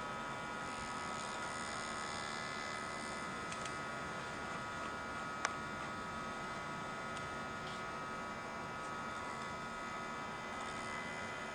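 Steady electrical hum with a faint hiss, and a single short click about five and a half seconds in.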